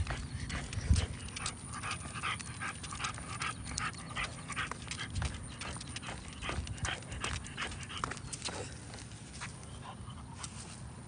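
French bulldog panting fast and rhythmically, about three breaths a second, as it walks on a leash, easing off near the end. Clicks and low thumps of walking on concrete run under it.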